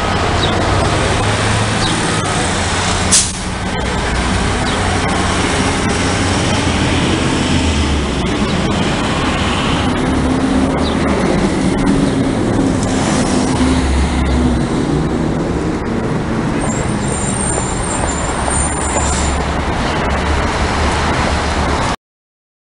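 Busy city street traffic: engines of passing trucks, buses and cars with a steady low rumble. A sharp click comes about three seconds in, and a high squeal near the end, before the sound cuts off abruptly.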